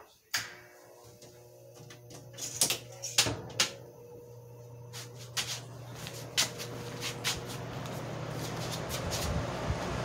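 Vintage Wizard two-speed reversible box fan switched on at high speed with a click: its motor hums and the rush of air grows steadily as the blades come up to speed. A few clicks and knocks of handling come between about two and a half and nine seconds in.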